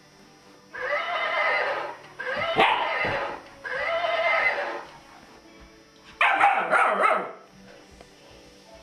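Toy rocking horse's recorded horse neigh, played four times: three about a second each in quick succession, then a fourth after a short pause.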